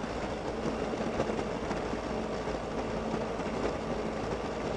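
Suzuki Burgman 650 maxi-scooter's parallel-twin engine running steadily while riding, with an even rush of noise around it.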